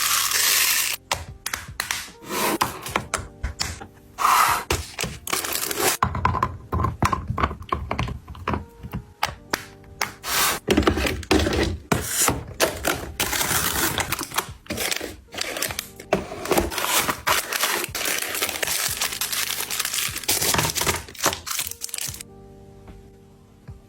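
Many quick clicks, taps and knocks of packaged items and containers being handled and set down during a kitchen restock, with background music underneath. Near the end the handling stops and only quieter music remains.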